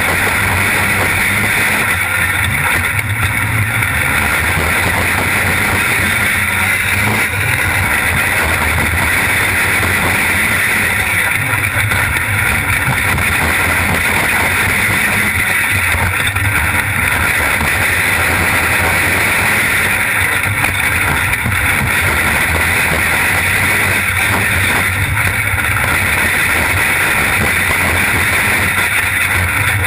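Winged sprint car's engine racing flat out as heard by an onboard camera in the cockpit, mixed with wind on the microphone. The note eases and builds again about every four seconds, lap after lap on a short dirt oval.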